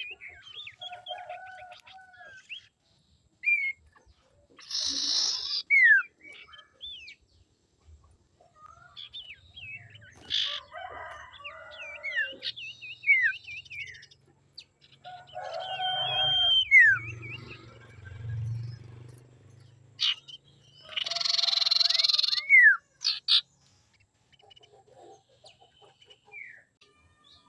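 Common iora calling: three harsh, rasping calls about a second long, each ending in a downward-sliding whistle, with short whistles and trills between them.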